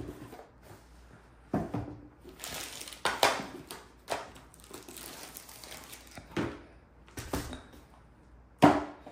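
Cardboard kit box and its packaging being handled: the inner tray sliding out of its sleeve, with rustling of wrappings and several short knocks, the loudest near the end.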